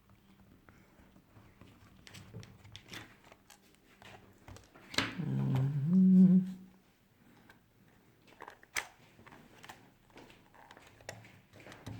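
Scattered light clicks and taps of a small screwdriver and plastic controller parts being handled. About five seconds in comes a louder voiced sound lasting under two seconds, with a wavering pitch.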